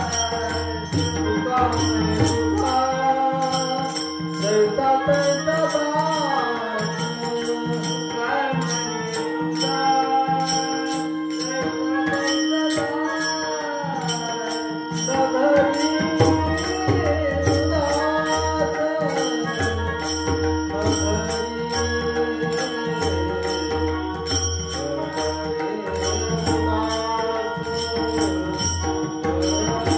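Devotional music: a wavering melody over a sustained drone, with jingling bells or small cymbals keeping a steady rhythm.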